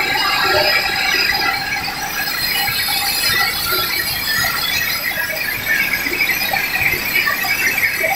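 Chana dal mill plant machinery running: a steady, loud mechanical din with high, shrill tones.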